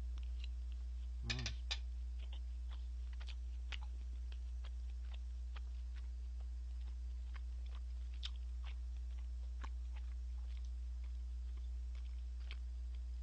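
Chewing a mouthful of steak: scattered faint mouth clicks and smacks, with a few louder ones about a second in, over a steady low hum.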